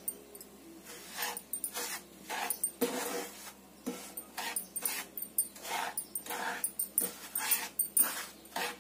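Wooden slotted spatula scraping and stirring dry milk powder in ghee around a non-stick pan, in short rasping strokes about two a second, as the powder is roasted on a low flame.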